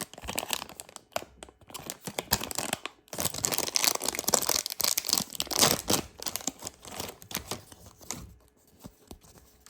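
A small toy figure pack's plastic wrapper being torn open and crinkled by hand. The crackling is loudest through the middle and thins out to a few light rustles near the end.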